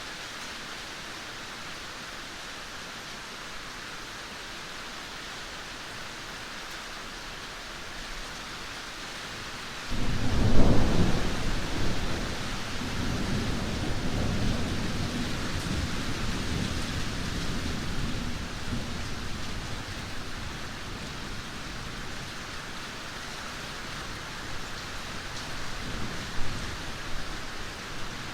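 Heavy rain falling steadily, with a sudden loud thunderclap about ten seconds in that rumbles on and slowly fades, and a smaller rumble of thunder near the end.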